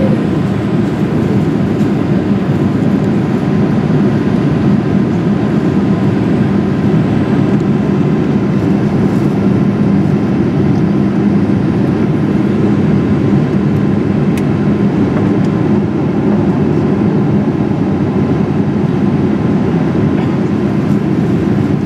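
Steady cabin noise of a Boeing 787-8 in flight: the engines and the air rushing past the fuselage, heard inside the cabin as a constant deep rush with a steady low hum.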